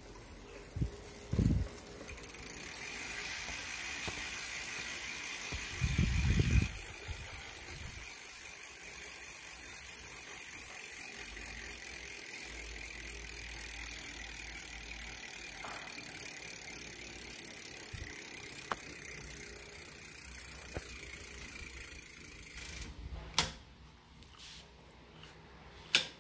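Garuda Robin folding bike's drivetrain running as the rear wheel is spun: chain running over the rear cassette and derailleur with the freehub's ratcheting whir, steady for about twenty seconds. There are a few heavy thumps about six seconds in, and sharp clicks near the end as it stops.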